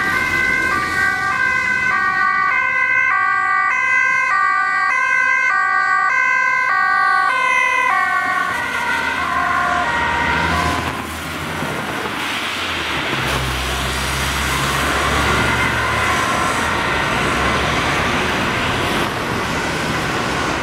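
Ambulance two-tone siren alternating between a high and a low note, which drop in pitch and fade out about eight to ten seconds in as the vehicle passes and drives away. Then road traffic noise, with a low engine rumble from a passing vehicle starting about halfway through.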